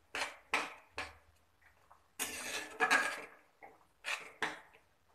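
A spatula stirring and scraping through a wet fish curry in a metal kadhai, in about seven separate strokes, one of them longer near the middle.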